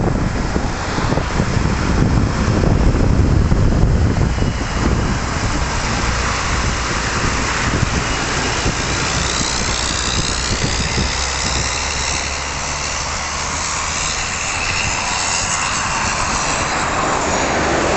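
Heavy recovery truck's diesel engine rumbling as it moves off and drives past, loudest in the first few seconds, followed by the steadier running noise of passing lorries.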